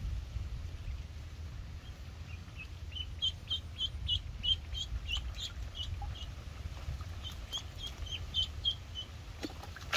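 Duckling peeping in short high cheeps, about three a second, starting a couple of seconds in with a short break in the middle, over a low steady rumble.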